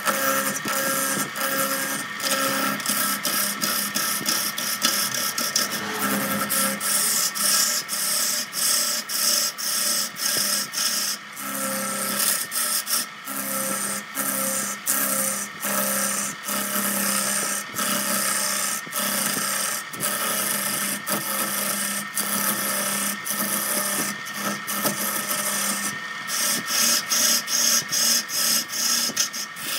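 Turning chisel cutting into a large wooden workpiece spinning on an electric lathe: a continuous rasping scrape of the cut, breaking off briefly many times as the tool is eased off and pressed back in. A steady hum from the lathe runs beneath it.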